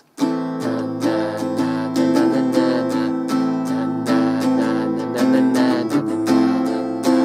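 Yamaha JR1 acoustic guitar strummed in a steady rhythm, the chords ringing and changing about every two seconds.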